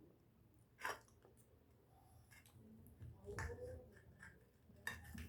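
Quiet eating sounds at a meal: a few sharp clicks of cutlery against a plate, about a second in, again around three and a half seconds and near the end, with faint chewing and mouth noises between.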